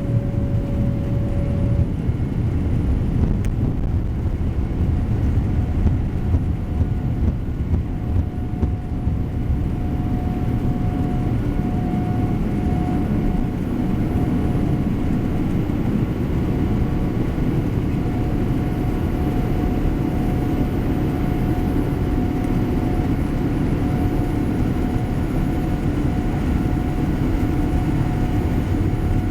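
Steady rumble of a Boeing 787 heard from inside the cabin, its Rolls-Royce Trent 1000 engines and airflow running evenly, with a faint steady whine above the rumble.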